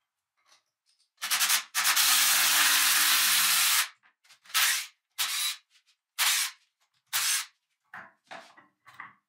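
Pressurised spray hissing in bursts: one long burst of about two seconds with a low hum beneath it, then four short bursts of about half a second each, and a few fainter ones near the end.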